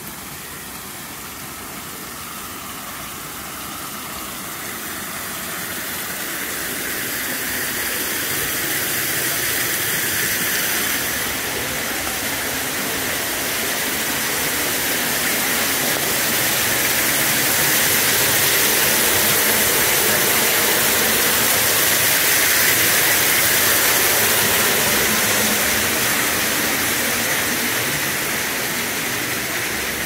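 Water from a garden water feature splashing and rushing as a steady hiss. It grows louder over the first eighteen or so seconds, then eases slightly.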